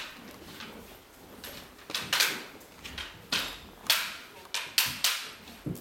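Kendo sparring: a series of sharp wooden knocks and clacks, about eight of them, starting about two seconds in and coming every half second or so, each with a short echo.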